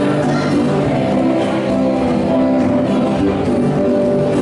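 Music playing steadily, with sustained pitched notes and no clear singing.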